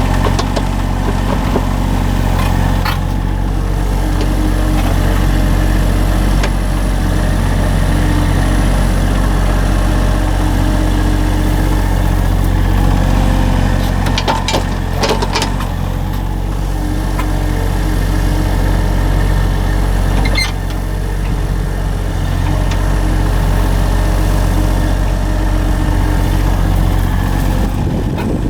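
A small engine running steadily at a constant speed, with a few short sharp knocks over it.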